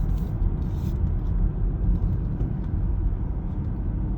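A car moving at road speed, heard from inside the cabin: a steady low rumble of tyres and engine.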